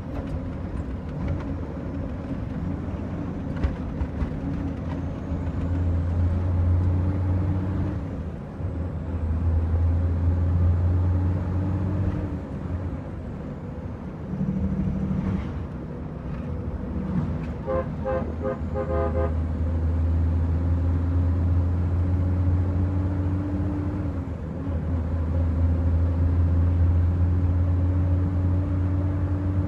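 Heavy truck's diesel engine heard from inside the cab, pulling up the road through the gears: the revs climb slowly and drop at each of several gear changes. A little past halfway a horn gives a quick run of toots.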